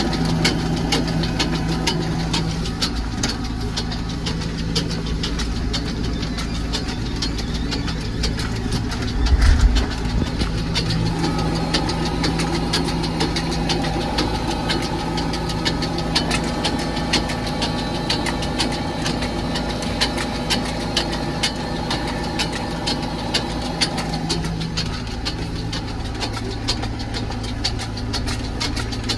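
Tractor diesel engine running steadily, heard from inside the cab while towing a feed trailer over a paddock. A constant fast rattling runs over the engine sound, and there is one loud low thump a little after nine seconds in.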